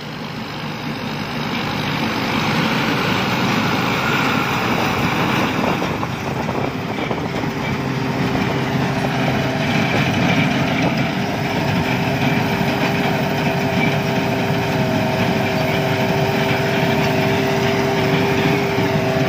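Rice combine harvester running under load, a dense steady machine noise that grows louder over the first couple of seconds. A steady whine comes in about six seconds in, joined by a higher one later.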